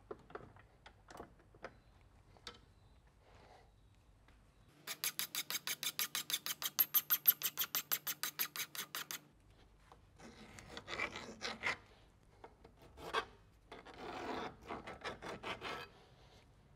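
Hand file rasping back and forth on a small metal sprocket retaining plate clamped in a bench vise, rounding off its freshly cut edges. A few faint clicks come first as the plate is set. Then comes a quick, even run of strokes, about five a second for some four seconds, followed by slower, irregular filing strokes.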